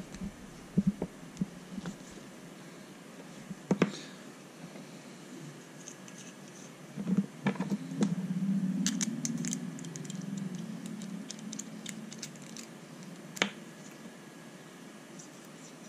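Small RC shock parts being handled and fitted by hand: scattered clicks and taps of small plastic and metal pieces, with a stretch of low rubbing and handling noise in the middle.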